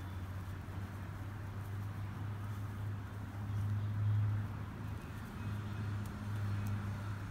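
Low steady background hum, swelling briefly about four seconds in.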